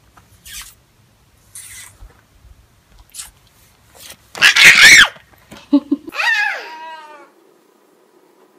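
A horse gives a loud, short snort through its nostrils about halfway through. A little later comes a single falling bleat from a lamb.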